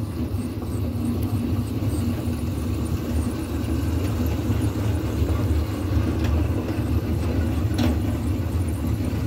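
A barrel train of steel-drum cars on small rubber wheels, towed by a kid's electric ATV, rolling over concrete: a steady low rumble heard from one of the rolling cars.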